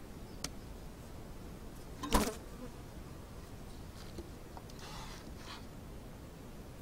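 Honeybees buzzing around an open hive. A single sharp wooden knock about two seconds in, as the hive's wooden cover board is set down, and a brief rustle near the end.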